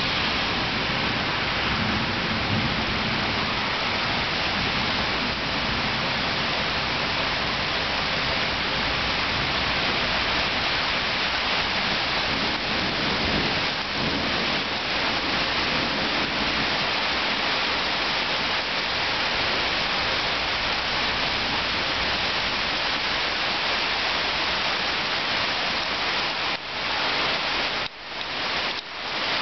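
Steady rain falling during a thunderstorm. A low rumble of thunder fades out over the first several seconds.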